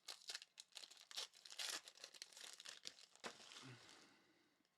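Faint crinkling and tearing of a trading-card pack's foil wrapper being opened and handled: a run of short crackles that dies away near the end.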